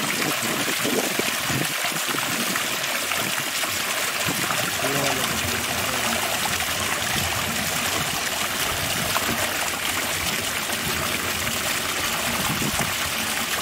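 Water running steadily, with a faint voice about five seconds in.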